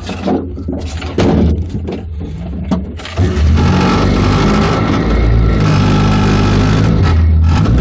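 Suzuki Samurai's four-cylinder engine idling with a few knocks, then revving up about three seconds in as the rig pulls away, and running steadily under load.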